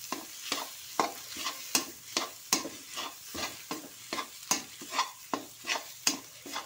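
A slotted metal spoon scraping and knocking against a metal kadhai, about two strokes a second, as mawa (khoya) is stirred over a low flame to soften it, with a faint sizzle underneath.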